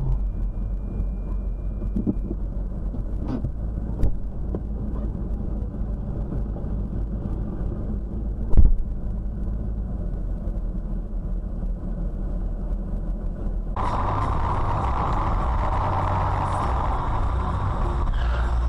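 Steady low rumble of a car at idle, heard from a dashcam inside the cabin, with sharp knocks about four and eight and a half seconds in. About fourteen seconds in, it switches abruptly to a brighter, louder traffic noise.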